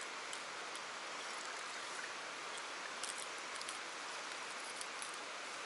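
Steady rush of fast-flowing river water, with a few faint small clicks about three seconds in from handling a fishing lure's hooks.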